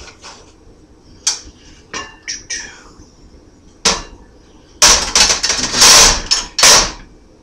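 Cast iron skillet lid knocking against the pan and an electric stove's coil burners. A few sharp clanks, then about two seconds of loud metal-on-metal clattering and scraping near the end as the lid is set down on a burner and shifted.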